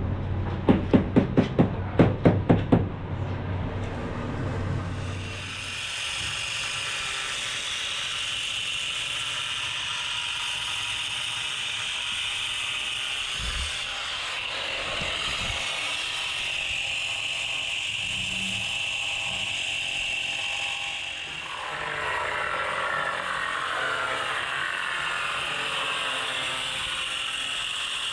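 A run of sharp knocks in the first few seconds, then a handheld angle grinder running with a steady high whine. In the last few seconds its sound wavers as it wet-cuts a granite tile strip, water poured onto the blade.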